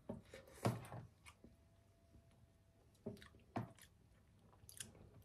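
Quiet eating with spoons: about six short, soft sounds of spoon and mouth as rice is taken and chewed.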